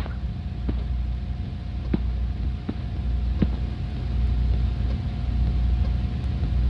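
Steady low rumble with a constant hum tone running under it, and a few faint taps or knocks less than a second apart in the first half.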